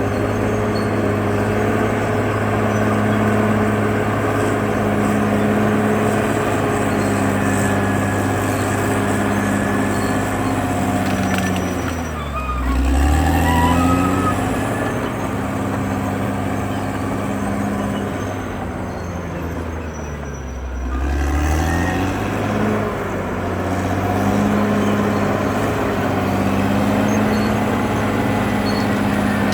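CAT D6R XL bulldozer's diesel engine running steadily at working speed. Twice, about a third and two-thirds of the way through, its pitch drops sharply and climbs back as the engine speed falls briefly and recovers.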